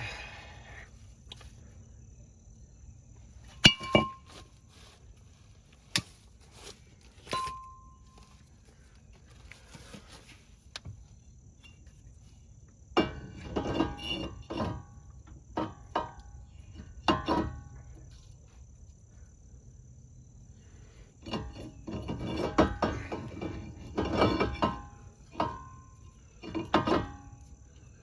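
Hand tools, screws and small metal car parts being handled: scattered sharp clinks and knocks, some with a short metallic ring, then two longer spells of rattling and clattering in the second half, over a faint steady high-pitched chirring.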